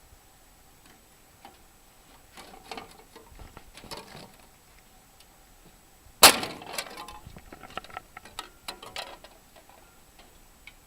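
Wires being cut and pulled out of a scrap air conditioner: scattered clicks, snips and metal clinks, with one loud sharp snap or clank a little past halfway through.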